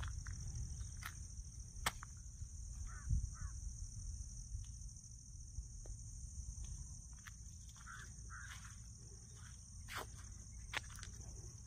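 Steady high-pitched insect chorus, with scattered faint chirps and a few sharp clicks. A low rumble sits underneath, strongest in the first few seconds.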